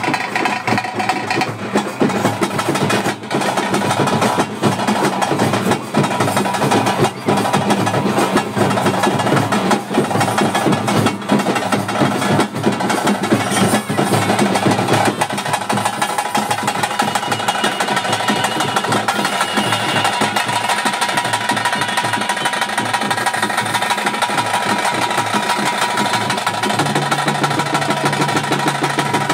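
Ritual drums and percussion playing a loud, fast, continuous beat, with a steady held tone underneath.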